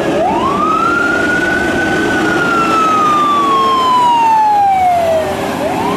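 Fire engine siren wailing over a steady rushing noise: one quick rise, a long slow fall, and the start of another rise near the end.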